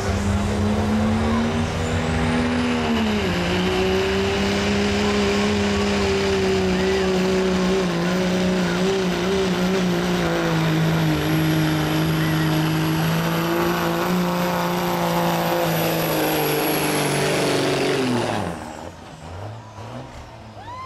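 Diesel Dodge Ram pickup pulling a sled at full throttle: the engine runs hard under load with a high turbo whistle over it. The engine pitch drops once about three seconds in and then holds steady. Near the end the engine comes off the throttle and the whistle winds down.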